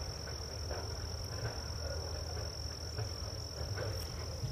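Insects calling in one steady, unbroken high-pitched tone, over a faint steady low rumble.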